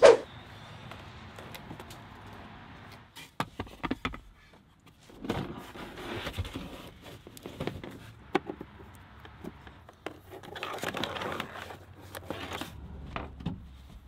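Handling noise as a portable 12 V compressor fridge is set into place in a car: scattered knocks and clicks of its plastic case, with two stretches of rustling and shuffling. The fridge is unplugged and not running.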